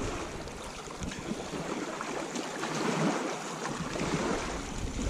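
Steady wind noise outdoors: an even hiss with an uneven low rumble of wind on the microphone.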